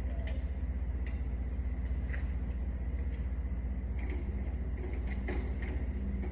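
Scattered light clicks and taps from door-lock hardware being handled and fitted, over a steady low hum.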